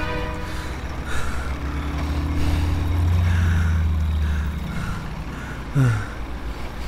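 Sound-effect engine drone of a tracked robot vehicle approaching, swelling to its loudest a few seconds in, with a soft pulsing about twice a second above it. A short falling whine comes near the end.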